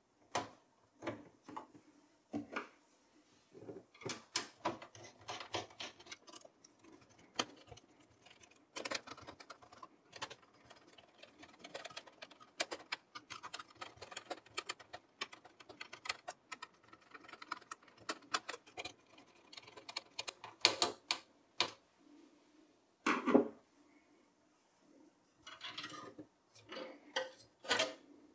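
Irregular small clicks, ticks and metallic taps as a CPU heatsink-and-fan cooler is seated on a desktop motherboard and screwed down inside a steel computer case, with a few louder knocks about three quarters of the way through.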